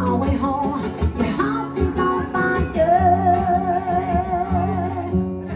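Acoustic guitar music playing the closing bars of a song. From about halfway through, a long wavering note is held over the strummed chords.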